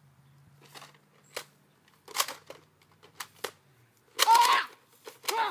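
Plastic clicks and rattles from a Nerf-style foam dart blaster being handled and primed, a handful of separate sharp clicks. A short shout about four seconds in and another near the end.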